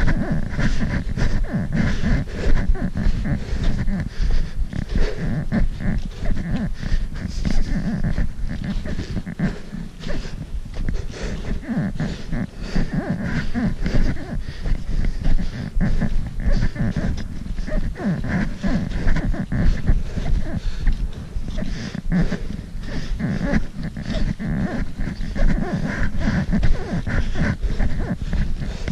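A hiker's footsteps crunching in packed snow with trekking-pole strikes, over a constant low rumble on the microphone and heavy breathing.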